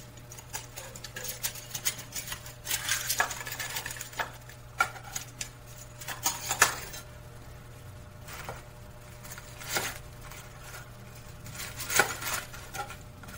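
Metal kitchen tongs clicking and clattering against a bowl as fried breaded chicken cutlets are lifted out and set down on a wooden cutting board, with scattered sharp knocks and a few short scraping sounds. Near the end a knife cuts into the crisp crust on the board.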